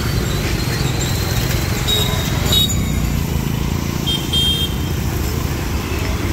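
Motor scooters and motorcycles running past on a city street, a steady low engine-and-traffic rumble, with brief high-pitched toots about two and four and a half seconds in.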